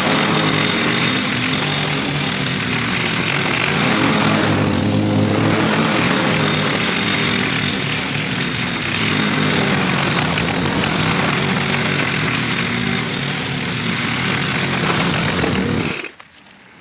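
Gasoline lawn mower engine running steadily under load while cutting grass, then cutting off abruptly near the end.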